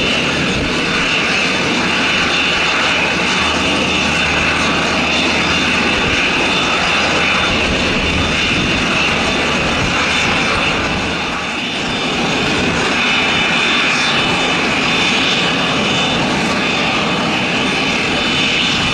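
Short SD3-60 Sherpa's twin Pratt & Whitney PT6A turboprop engines running at taxi power as the aircraft taxis. A steady turbine whine sits over propeller noise, dipping briefly about halfway.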